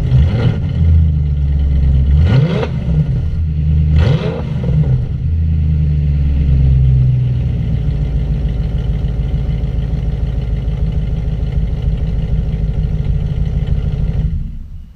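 Audi RS5 engine through an aftermarket HMS exhaust, revved in three quick throttle blips in the first few seconds, then settling to a steady idle that fades out near the end.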